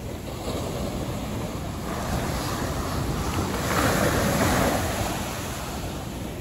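Ocean surf breaking and washing up the sand in surges, the loudest about four seconds in, with wind buffeting the microphone.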